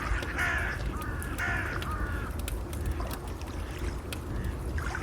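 A bird gives two harsh, caw-like calls in the first two seconds, over a steady low rumble of waves and scattered faint crackles of a fire.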